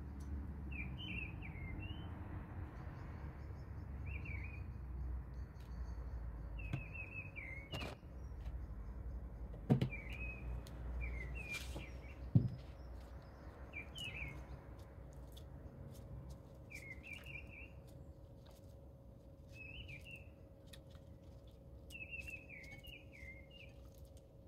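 Small birds chirping in short, quick phrases every second or two over a low rumble, with two sharp knocks about ten and twelve seconds in.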